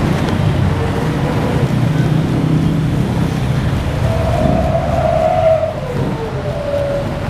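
Street traffic running past, with motor engines. About four seconds in, a long vehicle horn sounds for over a second, dropping in pitch near the end as it passes.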